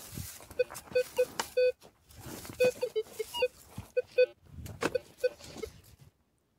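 Minelab Vanquish metal detector giving a quick, irregular series of short, fairly low beeps as its coil sweeps over ground with buried targets, over the rustling of dry leaves. The sound drops away near the end.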